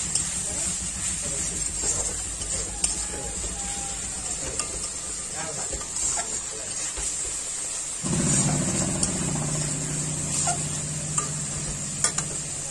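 Onion and tomato masala sizzling in a metal kadai, with a metal spatula scraping and clicking against the pan as it is stirred: the spice paste is being fried down (kasha) with a little water. A low steady hum comes in about eight seconds in.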